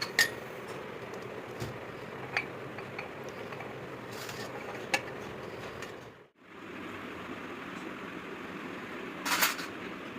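Hand tools and metal parts clinking now and then during turbocharger work, over a steady workshop background noise, with a short louder metallic rattle near the end.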